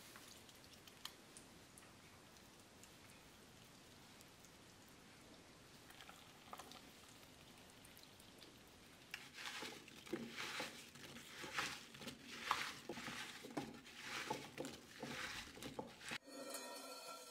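Faint steady hiss, then from about nine seconds in a run of soft, irregular clicks and rustles as a hand tosses diced apple pieces in a bowl, mixing lemon juice through them.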